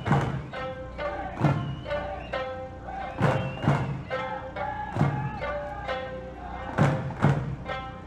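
Eisaa music: an Okinawan folk song sung with long held notes to sanshin accompaniment, punctuated by heavy eisaa drum beats that mostly come in pairs about every two seconds.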